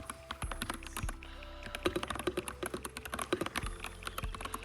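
Typing on a Coolkiller mechanical keyboard: a quick, uneven run of keystroke clicks as a sentence is typed out.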